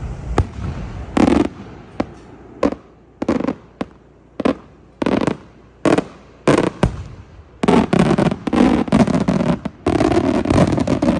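Aerial firework shells bursting overhead: a string of sharp bangs, roughly one every half second to a second, building into a dense run of bangs and crackle over the last few seconds.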